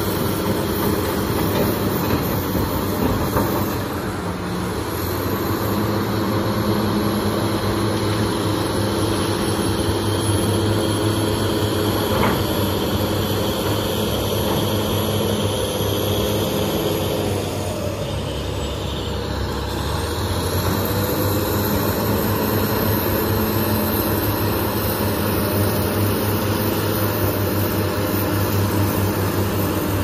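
Heavy diesel engines of a BEML BE1000 hydraulic excavator and a crawler bulldozer running steadily under load, easing briefly about two-thirds of the way through.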